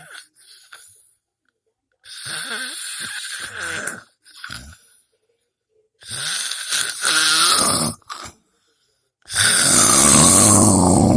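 Snoring: three long snores about four seconds apart, each louder than the last.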